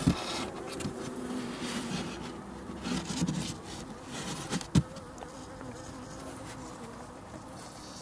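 Honeybees buzzing in a steady hum around a nuc box, robber bees among them taking the syrup. A single brief knock a little under five seconds in.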